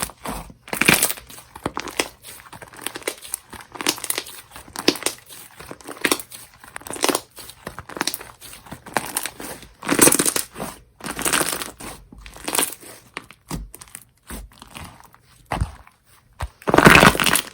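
Hands kneading and squishing slime with flowers mixed in: irregular squelches and crackles, with louder bursts about ten seconds in and near the end.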